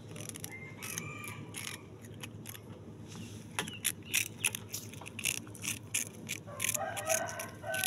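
A cat crunching and chewing a crisp wafer stick held to its mouth: a fast, irregular run of sharp crunches close to the microphone that gets busier partway through. A drawn-out pitched call starts near the end.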